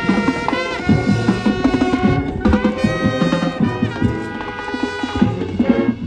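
Marching band playing live: sustained brass chords over drumline and front-ensemble percussion hits.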